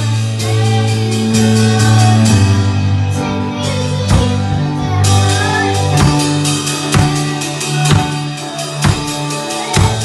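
A keyboard holding sustained low chords, with a drum kit playing along: regular kick and snare hits and cymbal strokes, which come through more strongly about halfway through.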